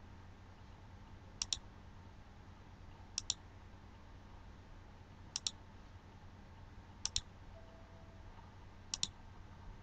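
Computer mouse clicking five times, each click a quick double tick as the button is pressed and released, over a faint steady low hum.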